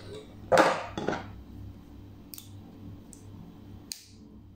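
A stainless-steel folding multitool being handled: a short scraping clatter about half a second in, then three sharp metal clicks spread over the next few seconds as a blade is folded out, the last near the end.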